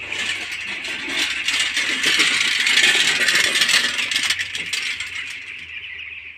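Hand-pulled metal poultry litter rake rattling and scraping as it is dragged through the litter, loudest in the middle and fading near the end. A steady high-pitched sound runs under it.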